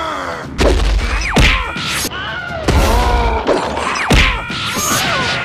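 Cartoon fight sound effects: several hits and crashes, two quick falling swoops and short character cries, over background music.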